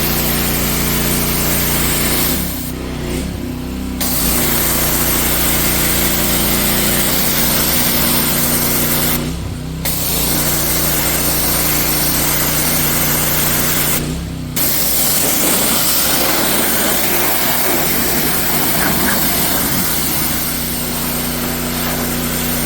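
Gas-engine pressure washer running steadily with the hiss of its high-pressure water spray. The spray drops out briefly three times while the engine keeps running.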